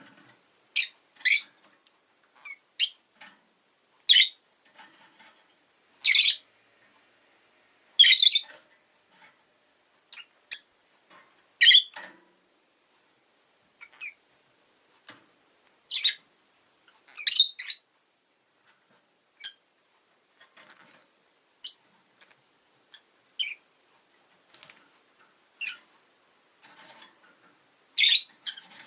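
Rosy-faced lovebirds giving short, sharp, high-pitched chirps and squawks, singly and in quick pairs, every second or two with quiet gaps between.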